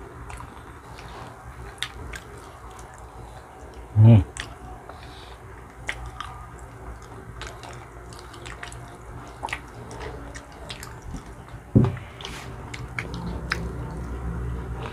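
Close-miked mouth sounds of someone eating a banana: soft wet chewing with scattered small clicks and smacks. Two short low sounds stand out, about four seconds in and near twelve seconds.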